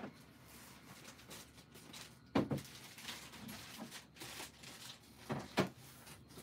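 Hard plastic graded-comic slabs being handled: a few sharp knocks and clacks of the cases, the loudest about two and a half seconds in and two close together near the end, with light plastic rustling between them.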